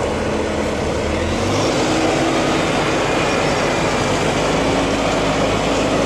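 Fendt tractor engine running steadily under load while pulling a reversible plough through the soil; the engine note shifts about a second and a half in.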